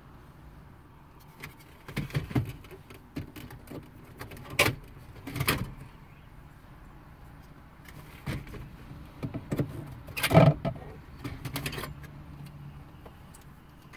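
Scattered plastic clicks and knocks as a car's radio bezel and its trim clips are handled and pressed against the dashboard, the loudest knock a little past halfway.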